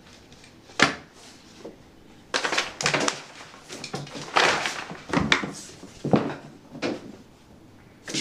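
Kittens scrabbling and pouncing in an empty bathtub: paws and claws scuffing and knocking on the tub surface. A single knock about a second in, then a run of scuffling scrapes and sharp knocks from about two seconds in.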